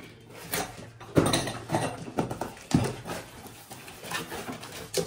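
Irregular knocks, thuds and clatter of tools and parts being handled and taken out of a cardboard accessory box.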